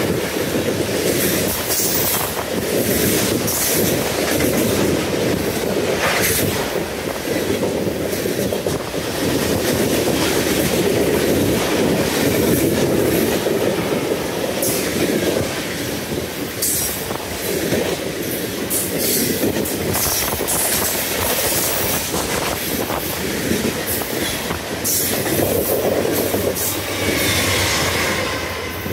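Freight train rolling past at close range: a steady rumble and clatter of wheels over the rails, with short high-pitched wheel squeals now and then.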